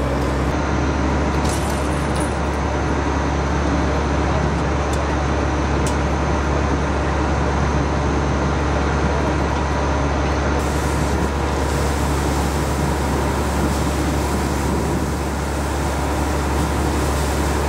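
A fire truck's diesel engine running steadily at a constant pitch, with an even rushing hiss over it.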